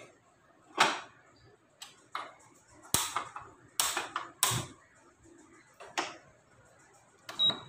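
Sharp separate clicks about a second apart as a gas stove burner is turned on and lit, then a short high beep near the end from an induction cooktop's control panel.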